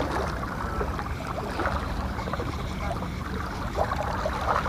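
Steady low rumble of a small boat on the sea, with light splashing of water.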